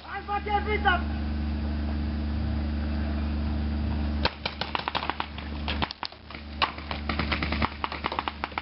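Paintball markers firing rapid strings of sharp pops, beginning about four seconds in, with a few scattered shots in the first second.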